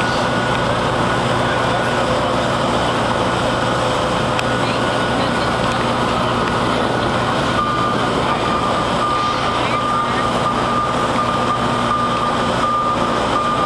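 Steady drone of heavy diesel construction machinery running, with a high steady whine that comes in about halfway through and holds.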